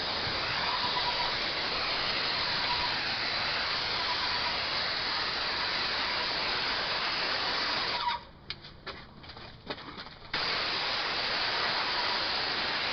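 Airless paint sprayer (Titan 440i pump near full pressure, RAC X 310 tip) hissing steadily as paint atomizes at the tip. The spray stops about eight seconds in when the trigger is let go, and starts again about two seconds later.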